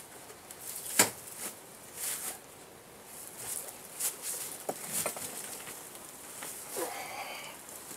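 Bee smoker being puffed: short airy hisses of smoke from its bellows every second or so, with one sharp knock about a second in.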